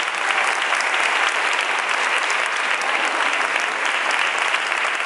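Applause: many hands clapping in a dense, even patter that holds steady throughout.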